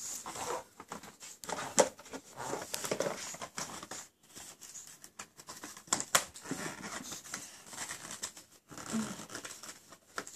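A cardboard gift box being handled and opened by hand: irregular scraping and sharp clicks of cardboard and packaging, the loudest clicks about two and six seconds in.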